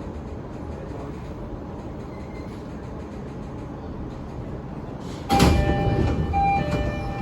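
Steady low rumble of a standing E233-3000 series commuter train; then, about five seconds in, its door chime rings out in repeated clear tones as the doors slide. This is the slightly lower-pitched chime of the 2017-built sets.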